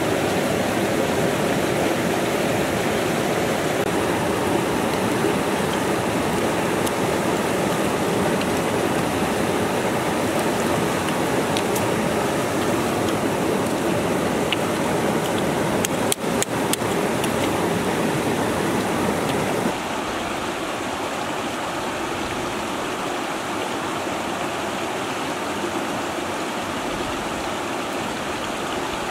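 Steady rushing of water over rocks from a small jungle waterfall and stream. It drops a little quieter about twenty seconds in, with a few faint clicks shortly before.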